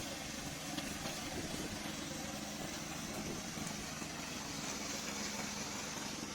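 Remote-control lawn mower running steadily, its engine giving an even hum.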